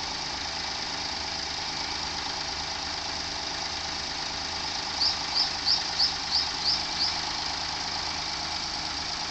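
Daihatsu Move L175S's three-cylinder engine running steadily with an abnormal rattle ('garagara') coming from the engine. About five seconds in, a bird chirps seven times in quick succession, louder than the engine.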